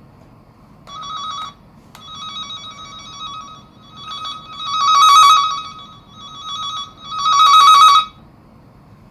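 All-Sun EM415pro automotive tester giving a steady high-pitched electronic buzzing tone in several stretches. It starts about a second in, swells louder and fades again twice with its loudest moments around the middle and near the end, then stops.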